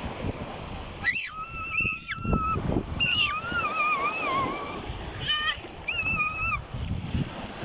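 A dog whining in several high, wavering whines, each lasting up to about two seconds, with short breaks between them.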